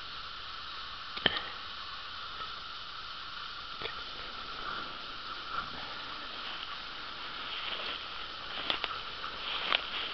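Footsteps shuffling and crunching through dry fallen leaves, with a steady hiss and a few sharp clicks, one about a second in and two near the end.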